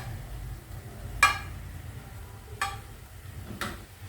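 A spoon knocking and scraping against a cooking pot, with a few sharp clinks a second or so apart over a steady low hum.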